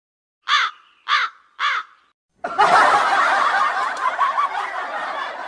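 Three short, harsh cawing calls like a crow's, then a burst of canned audience laughter that starts abruptly and goes on.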